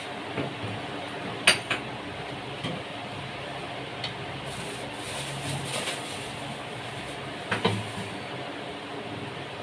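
Dishes and containers clinking and knocking as things are taken out of a refrigerator. There are a few scattered knocks, the loudest about a second and a half in and another near the end.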